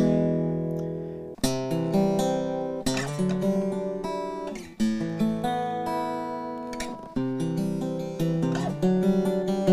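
Handmade archtop jazz guitar on a new set of strings, played as a slow run of strummed chords, each left to ring and fade before the next is struck.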